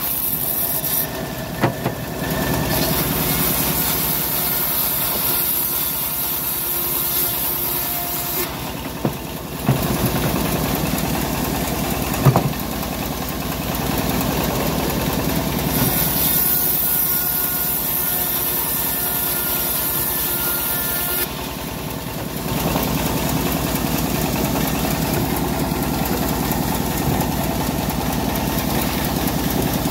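Homemade bandsaw mill sawing old teak: the engine that drives it runs steadily under the hiss of the blade cutting the wood. The hiss drops away briefly three times as one pass ends and the next begins, and there are a few sharp knocks in the first half.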